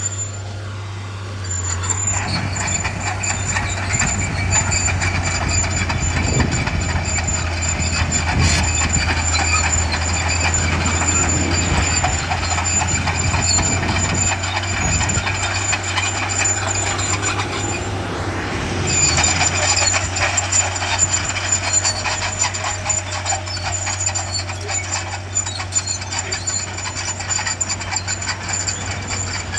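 Bulldozer's diesel engine running steadily at work, with a low hum and a high whine over it; it grows louder about two-thirds of the way through.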